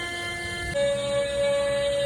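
CNC engraving machine's stepper motors whining at a steady pitch, jumping abruptly to a higher pitch about three-quarters of a second in as the feed changes.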